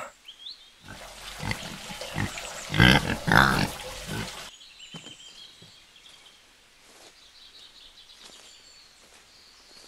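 Pig grunting as it roots through garbage, loudest about three seconds in, cutting off suddenly about four and a half seconds in; after that only quiet outdoor background.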